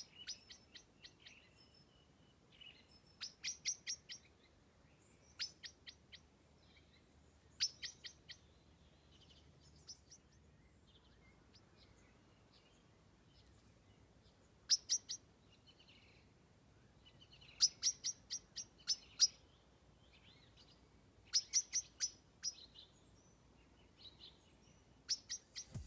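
Birds singing: short phrases of quick, sharp high chirps, each a rapid run of notes, repeated every few seconds with quiet gaps between.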